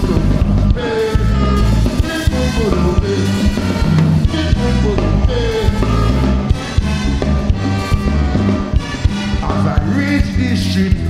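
Live calypso played by a big band with a saxophone and horn section, over a steady bass and drum beat.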